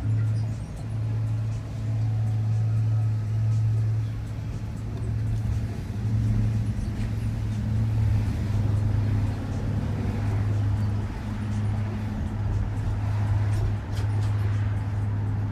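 Shuttle van driving, heard from inside the cabin: a steady low engine and road drone.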